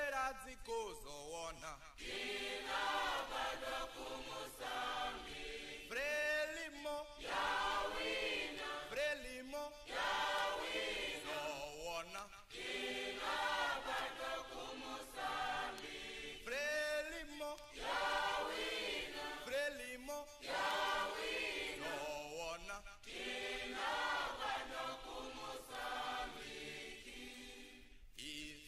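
A choir of voices singing a chant-like Mozambican liberation song praising Frelimo, in phrases with short breaks between them.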